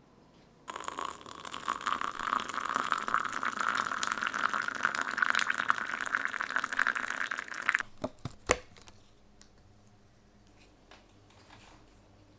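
Water poured in a thin stream into a ceramic mug holding a tea bag, a steady splashing fill lasting about seven seconds before it stops. Two sharp knocks follow shortly after.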